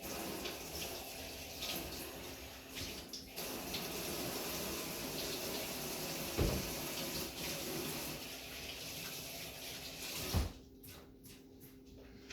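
Kitchen tap running into a sink, with a couple of dull knocks, then shut off about ten seconds in.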